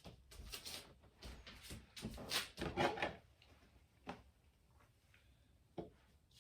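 Close-up handling noises: a run of short rubbing, rustling strokes, loudest about two to three seconds in, then a few isolated clicks.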